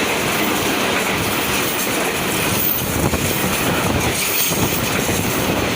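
A KRL electric commuter train passing close by at speed: a steady loud rush of wheels on rail, with a few clacks over the rail joints.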